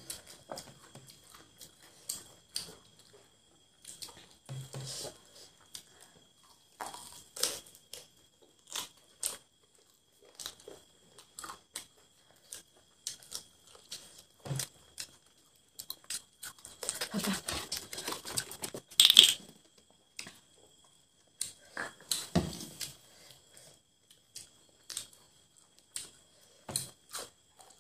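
Close-up eating sounds: cooked chicken leg pieces torn apart by hand, bitten and chewed, heard as scattered short clicks and tearing sounds with quiet gaps between. They bunch together about 17 to 19 seconds in, where the loudest snap comes.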